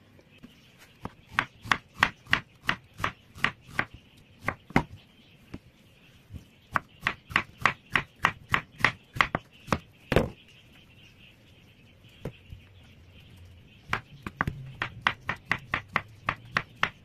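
Kitchen knife slicing a nectarine and a red dragon fruit on a wooden cutting board: sharp taps of the blade on the board, about two or three a second, in runs with short pauses between them.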